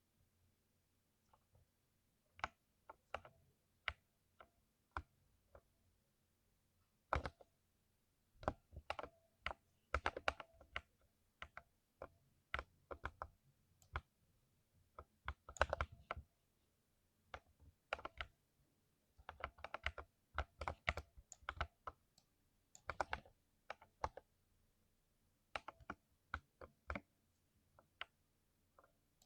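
Typing on a modded mechanical keyboard: irregular bursts of sharp keystroke clicks with short pauses between them.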